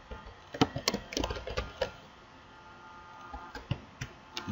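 Typing on a computer keyboard: a quick run of key clicks in the first two seconds, then a few scattered keystrokes.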